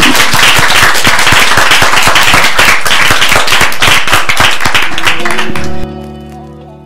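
Audience applauding, dense clapping that is cut off suddenly near the end. Just before the cut, a held musical chord comes in and slowly fades.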